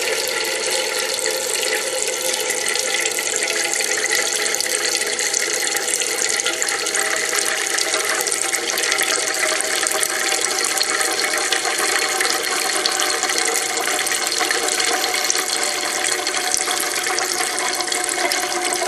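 Thin streams of water from a homemade Kelvin water dropper falling and splashing steadily into metal cans.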